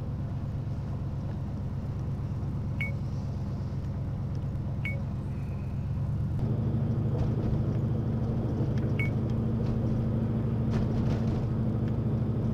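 Car engine and road noise heard inside the cabin through a dash cam's microphone while driving: a steady low hum that gets louder about six seconds in. Three short, high chirps are heard over it.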